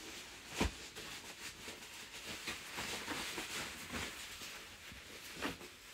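Fabric mattress protector with a waterproof backing being unrolled and shaken out by hand: steady rustling of cloth, with two soft thumps, one just after the start and one near the end.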